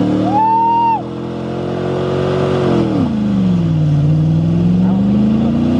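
Chevrolet Silverado pickup's engine held at high revs during a burnout, its rear tire spinning and smoking. The revs dip about three seconds in, then climb back up. A brief high whoop is heard near the start.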